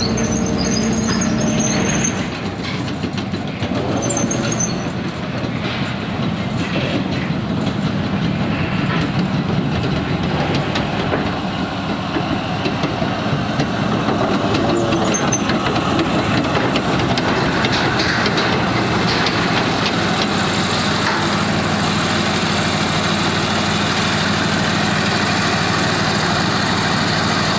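Tracked armoured tank driving onto a ferry: its heavy engine running with the clatter of its steel tracks, a continuous mechanical din that grows somewhat louder about halfway through.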